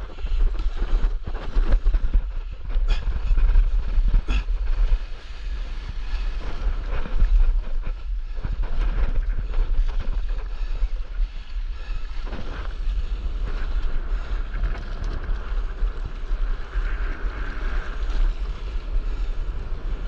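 Wind buffeting the microphone of a board-mounted action camera, with water splashing and lapping against the nose of a stand-up paddleboard moving through choppy sea.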